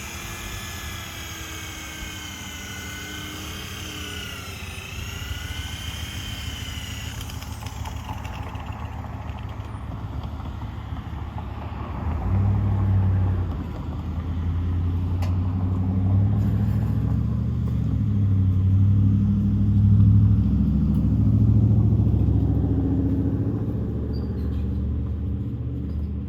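Power polisher spinning an airway buffing wheel on the pontoon's aluminium: a motor whine whose pitch dips and recovers in the first several seconds, then a heavier, louder low rumble from about twelve seconds in.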